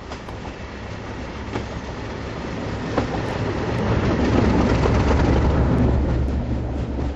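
Diesel locomotive's engine drone growing louder as the train approaches. It is loudest as the locomotive passes directly underneath about four seconds in, then eases off as the coaches follow. Some wheel clatter on the rails.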